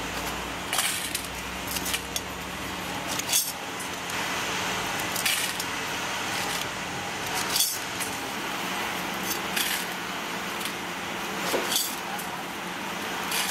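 Small brass spoke nipples clinking and jingling as handfuls are dropped into the metal pans of a hanging balance scale, in short bursts every second or two, over a steady background hum.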